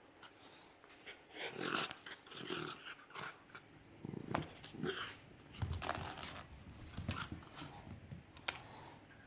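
Two puppies play-fighting with each other: dog vocal sounds and scuffling clicks in irregular bursts.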